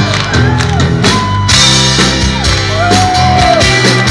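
Live rock band playing the instrumental intro of a song at full volume: electric guitar lead lines with bent notes over bass and a drum kit.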